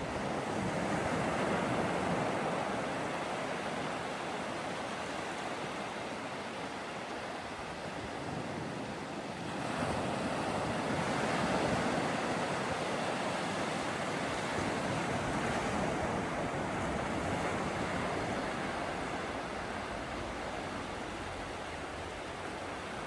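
Atlantic Ocean surf: a steady wash of breaking waves that swells louder about ten seconds in.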